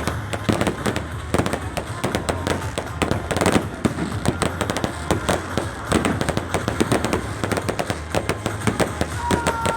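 Fireworks display: a dense, continuous crackle of many bangs and pops, several a second, throughout.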